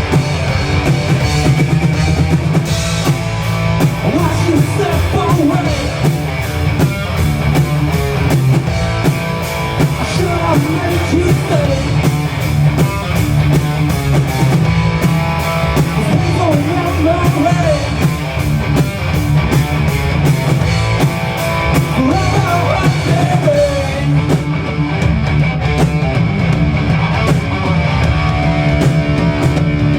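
Live rock band playing loud: electric guitar, bass and drum kit.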